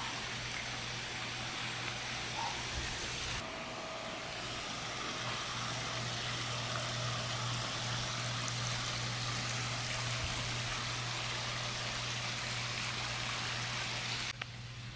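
Steady splashing of water from a raised spa spilling over a stone wall into a swimming pool, over a low steady hum. The sound shifts abruptly a few seconds in and drops away near the end.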